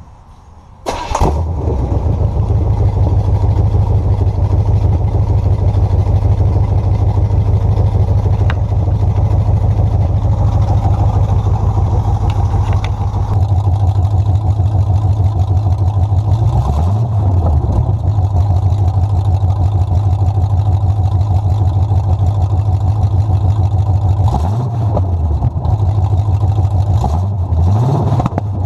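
Chevy small-block V8 starting abruptly about a second in, then running steadily at idle. It is blipped up in revs and back down briefly a few times, once in the middle and twice near the end.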